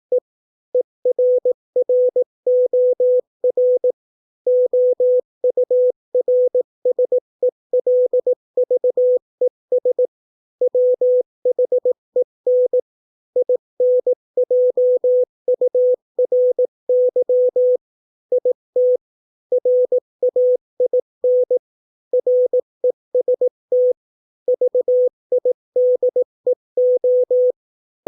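Morse code sent as a single steady beep tone, keyed on and off in dots and dashes at 18 words per minute. It spells out English practice words, with short pauses between the words.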